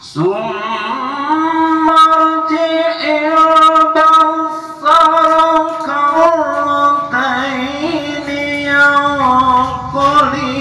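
A single voice reciting the Quran in a melodic, drawn-out tilawah style. It enters suddenly and holds long, ornamented notes that slide between pitches, with short breaks between phrases.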